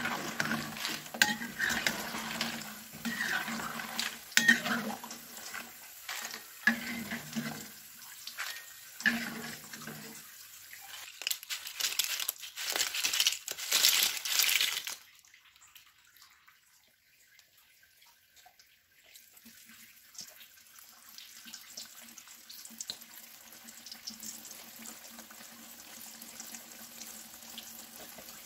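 Cassava chips sizzling in hot oil in a wok, with a metal spatula and wire strainer clinking against the pan as the fried chips are lifted out. About ten seconds in comes a dry crackling rattle of crisp chips tipped into a paper-lined basket. After a short lull, a quieter steady sizzle of a fresh batch frying.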